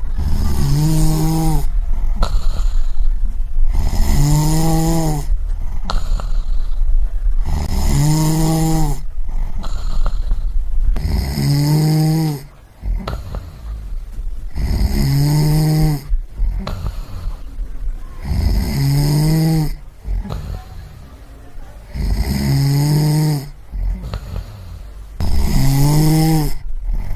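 A person snoring in a steady rhythm: about eight snores, one roughly every three and a half seconds, each a pitched rattling snore on the breath.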